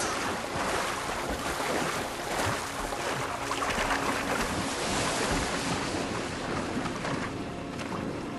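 Loud rushing and splashing of river water, swelling through the middle, as crocodiles attack gazelles crossing the river.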